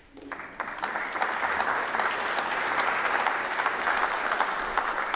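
Audience applauding: dense, steady clapping that starts a moment in.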